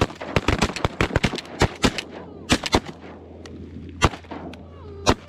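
Several shotguns firing together in a rapid, overlapping volley of a dozen or more shots over about three seconds, then two single shots about a second apart near the end.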